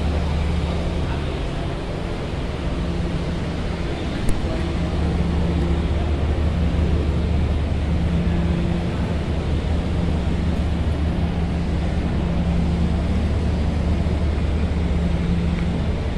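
Steady low engine drone, one unchanging hum, with a single sharp click about four seconds in.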